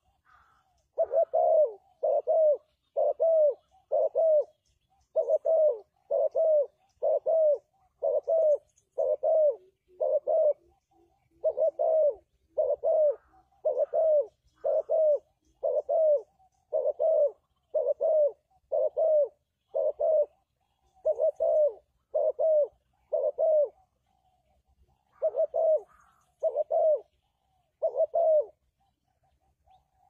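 Spotted dove cooing: a long series of short, low coos, about two a second, in runs broken by brief pauses.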